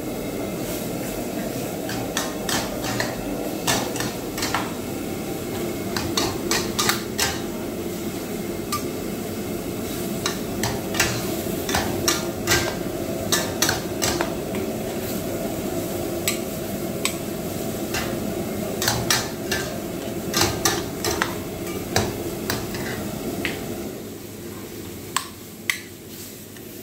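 Metal wok spatula and ladle clanking and scraping against a wok as rice vermicelli is stir-fried, in many quick irregular strikes, over the steady rush of the lit gas wok burner. The rushing drops a little near the end.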